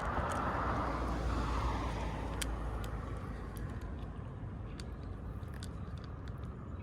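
A car passing on a nearby road, loudest in the first couple of seconds and then fading into steady traffic noise, with a few faint clicks.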